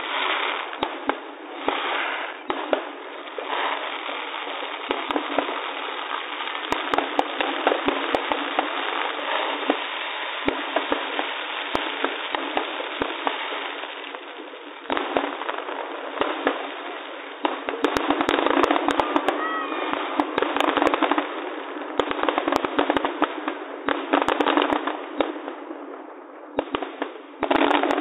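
Aerial fireworks going off: many shell bursts with sharp bangs over continuous crackling. The bangs come thickest about two-thirds of the way through.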